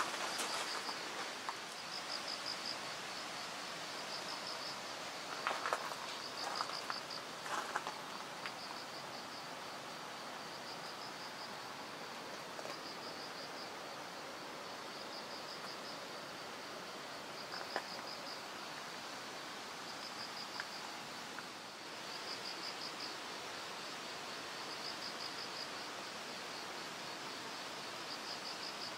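Insect chirping in short pulsed trills, repeated every couple of seconds over a steady outdoor hiss, with a few faint rustles a handful of seconds in.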